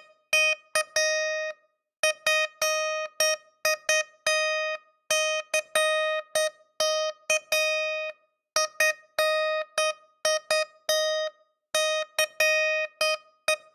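Morse code sent as a single high-pitched tone: short and long beeps (dots and dashes) in uneven groups, with brief pauses between groups. Each beep starts sharply and fades slightly while held.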